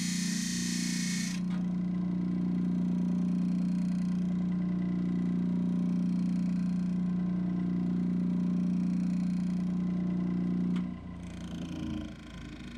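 RBG blade grinder grinding the edge of a wavy mulch mower blade: a loud hissing grind that stops about a second in when the blade comes off the wheel. The grinder's motor then runs on with a steady hum, which drops away near the end.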